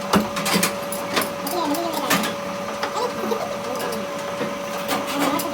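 A machine running with a steady hum, with irregular clicks and taps of metal work over it, and voices in the background.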